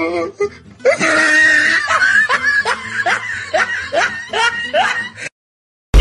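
A long bout of laughter in quick repeated rising 'ha's, about two to three a second, with music beneath it. It cuts off suddenly about five seconds in, and a short loud burst comes at the very end.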